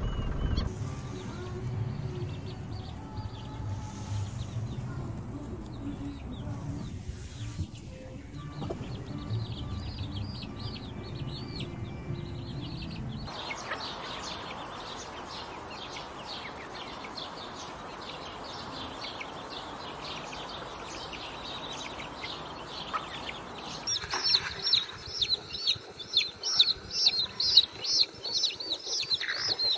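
Chicks peeping, many quick high chirps close together and loudest in the last six seconds. Earlier, fainter chirping sits over a low rumble and then over a steady hiss.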